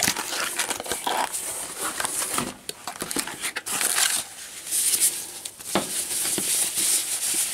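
Cardboard box flaps being opened and white packing wrap crinkling and rustling as a small camera is unwrapped by hand, in a run of irregular rustles.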